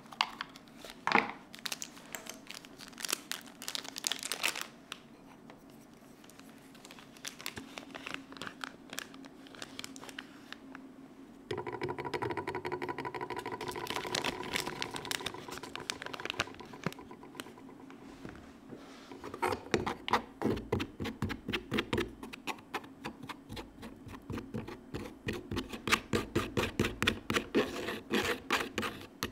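A small paper box of matcha opened with a few clicks, then scratching and scraping as green tea powder is pressed through a fine stainless-steel mesh strainer with a bamboo scoop. The scraping turns into quick, rhythmic strokes of about three a second near the end.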